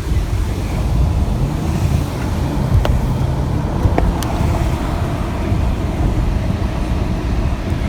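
Strong tornado-driven wind rumbling steadily on the microphone, with a few sharp ticks about three and four seconds in.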